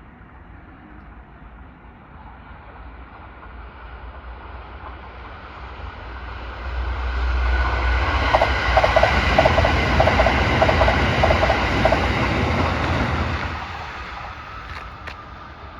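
Six-car Kintetsu 'Hinotori' limited-express electric train approaching, passing and receding, rising to loud and then fading. In the middle of the pass its wheels clatter over rail joints in a quick, even run of knocks.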